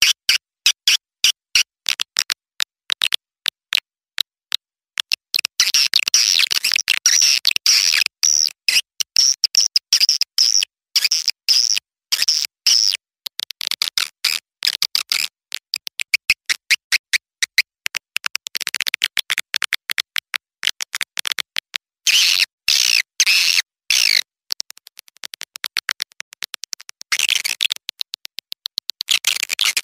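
Swiftlet lure call of young edible-nest swiftlets: fast trains of sharp, high chirps and clicks, sparse and evenly spaced at first, then a dense chattering twitter that thins out again near the end. It is a looped call-playback track of the kind used to draw swiftlets into a nesting house.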